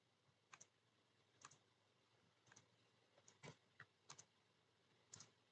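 Faint, scattered keystrokes on a computer keyboard, about eight sharp clicks at irregular intervals with near silence between.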